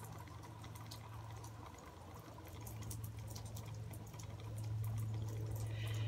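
Low steady hum that grows a little louder partway through, with faint small water sounds and tiny scattered clicks from shallow water in an enamel basin.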